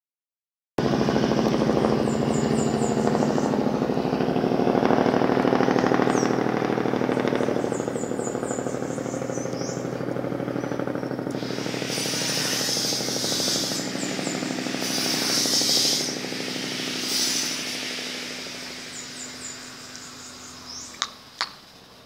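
A motor running steadily with a fast pulsing beat, fading over the last few seconds. Short runs of high chirping notes recur every few seconds, and a bright hiss swells in and out a few times in the middle.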